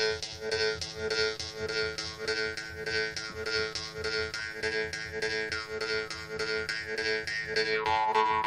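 Homemade Jew's harp (vargan) being played: its reed is plucked in a fast even rhythm, about four to five strokes a second, over a steady drone. The overtones shift with the player's mouth, and a brighter, higher overtone rings out near the end.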